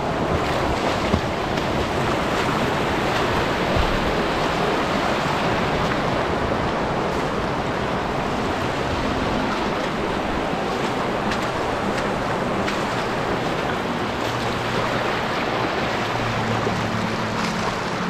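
River water flowing with a steady rushing sound.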